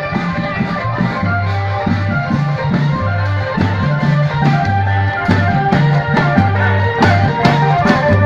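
Thai klong yao long-drum band music: continuous drum and cymbal beats under a plucked-string melody and a repeating bass line.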